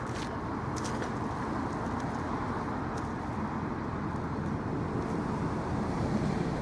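Steady low outdoor background rumble with a few faint clicks near the start and about three seconds in.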